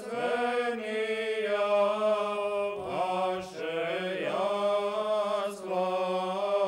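Orthodox church chant: voices sing a melody in phrases over a low drone note that is held without a break.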